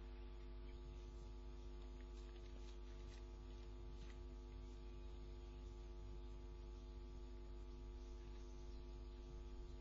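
Faint, steady electrical mains hum: a set of fixed tones that stays unchanged throughout.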